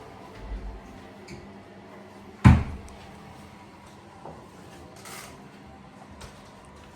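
One loud, sharp knock about two and a half seconds in, with a soft low thump before it and a brief rustle later, typical of a cupboard door being shut.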